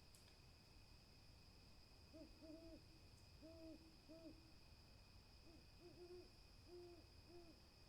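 Faint soft hooting of an owl: about ten short low notes in two quick runs, beginning about two seconds in. Two steady high-pitched tones hum underneath throughout.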